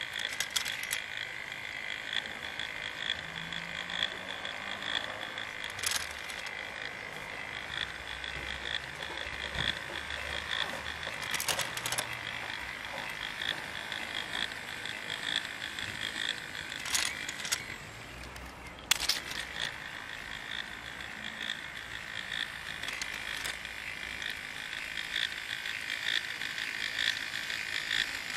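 K'nex sculpture's plastic gear train and small electric motor running, making a steady, fast rattling whirr, with a few sharp clicks; the loudest click comes just after a brief dip in level.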